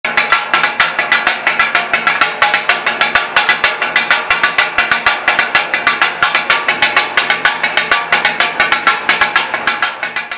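Two metal spatula blades striking a flat steel tawa griddle in a rapid, even clatter as a cook chops meat for tawa taka tak.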